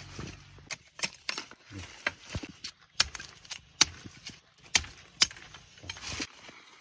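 A blade chopping at a green bamboo cane: about a dozen sharp, irregular knocks, with leaves rustling between them.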